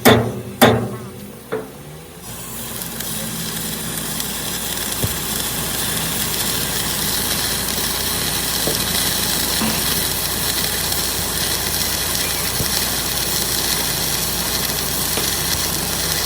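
Two or three sharp hammer blows in the first second and a half, then a steady hiss that sets in about two seconds in and holds evenly.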